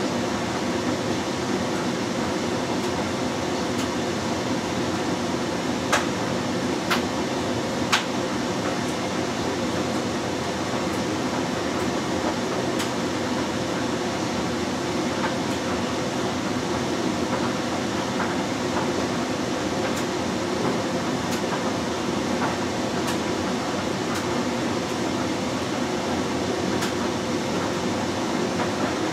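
LG Direct Drive 6 Motion front-loading washing machine in its main wash, the drum tumbling a soapy load with a steady churning and sloshing. Three sharp clicks come about six, seven and eight seconds in.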